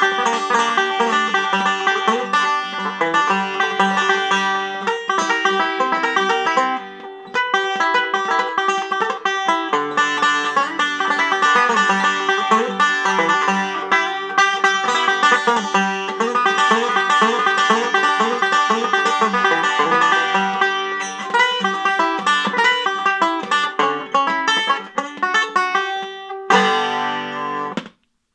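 Banjo fingerpicked with thumb and finger picks, playing a fast, continuous run of bright plucked notes. The playing dips briefly about a quarter of the way in, and near the end it closes on a ringing chord that is cut off.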